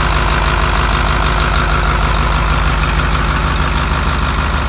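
International Harvester V8 engine idling steadily, with an even low throb.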